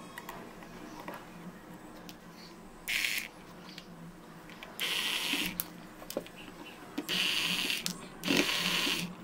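Screwdriver turning out the small screws of a mixer motor's end bracket: four short bursts of metal scraping and grinding as the screws turn, with small clicks in between.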